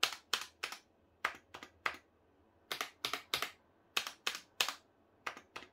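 Escape key on Razer Huntsman optical-switch keyboards being pressed repeatedly, sharp plastic clacks in short runs of three to five presses with brief pauses between runs.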